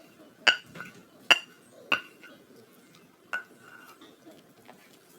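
A metal utensil striking cookware: four sharp, ringing clinks, the last about three and a half seconds in.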